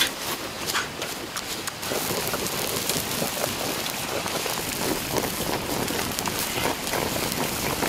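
Braising liquid sizzling and bubbling in a wok around a pig's head over a wood fire: a steady crackling hiss, with scattered sharper crackles in the first couple of seconds and a denser, even sizzle after that.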